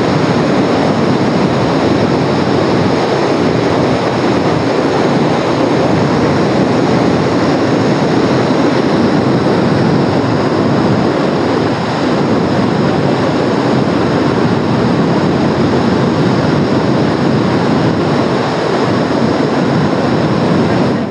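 Class IV+ big-water river rapid: a steady, loud rush of whitewater pouring and churning over rocks.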